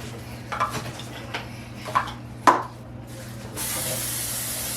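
A few clinks and clatters of kitchen things being handled, the loudest about two and a half seconds in, then a steady hiss of aerosol cooking spray for about a second near the end.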